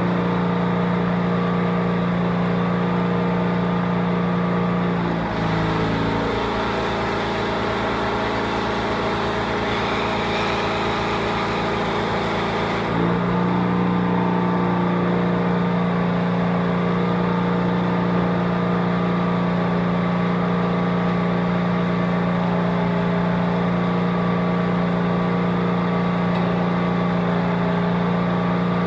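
A steady mechanical hum with several pitches. For several seconds in the middle it changes, and a harsher, hissing noise joins it.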